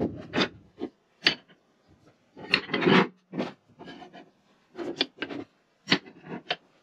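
Lengths of rod stock being handled and slid into a wooden storage rack on a workbench: irregular knocks and clacks mixed with scraping rubs, the longest scrape about two and a half seconds in.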